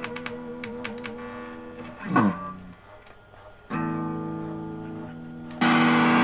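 Electric guitar played through an effects pedal: a held note with a slight waver, a quick downward pitch slide about two seconds in, then a sustained chord and a brief, louder, noisier chord near the end.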